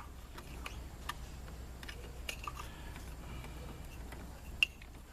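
Small plastic clicks and rattles of wiring-harness electrical connectors being handled and pushed together by hand, with a sharp click at the start and another about four and a half seconds in.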